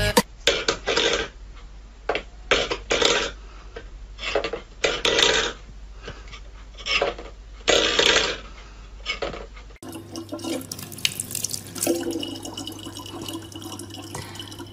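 Short, irregular noisy bursts, about one or two a second, for the first ten seconds. Then a tap runs a thin, steady stream of water into a plastic bottle, with a low hum under it.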